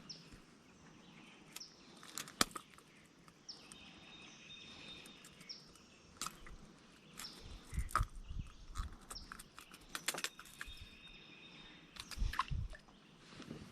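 Birds calling and chirping in the background, with several sharp knocks and clicks scattered through.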